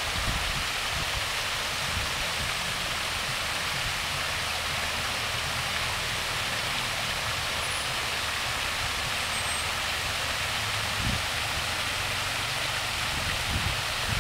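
Fountain water spilling in a curtain over the rim of a raised round basin and splashing into the pool below: a steady, even rushing, with a faint low rumble underneath.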